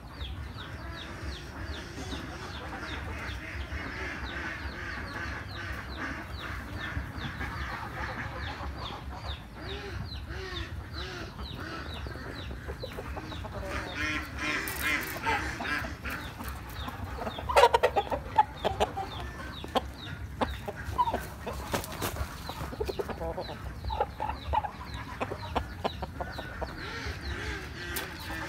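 Vietnamese chickens clucking in a steady stream of short calls, with a louder run of calls a little past halfway.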